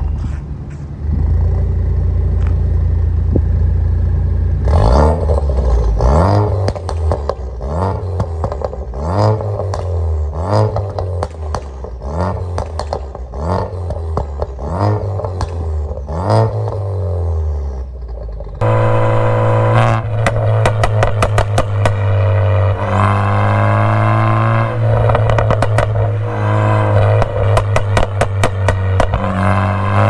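Tuned Ford Focus ST 250's turbocharged 2.0 EcoBoost four-cylinder idling, then blipped about a dozen times in quick succession, each rev followed by crackles and pops from the exhaust on overrun, the burble of an overrun (pops and bangs) map. About two-thirds through, the sound cuts abruptly to a steady drone with rapid crackles.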